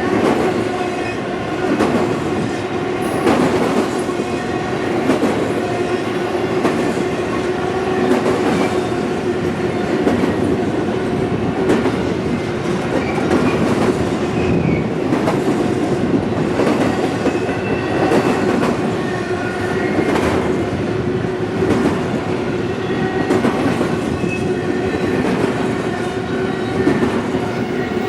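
Intermodal freight train cars rolling past at track speed, the wheels clacking over rail joints every second or two, over a continuous rumble and a steady metallic ringing tone from the wheels on the rail.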